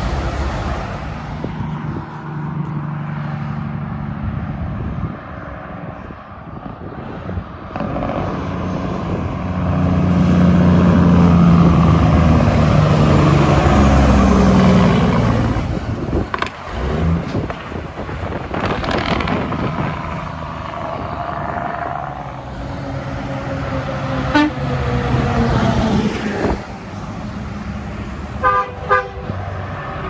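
Heavy trucks passing on a highway, their engines loudest as one goes by about a third of the way in. Near the end a horn gives a few short toots.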